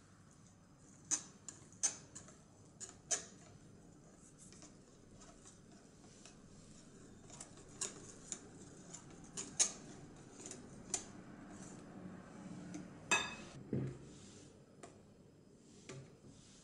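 Kitchen utensils clinking and tapping against bowls and dishes: a dozen or so sharp, scattered clicks, the loudest about thirteen seconds in.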